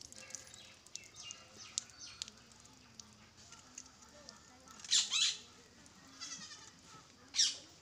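Short, high-pitched animal calls: fainter ones, then two loud ones about five seconds in and just before the end.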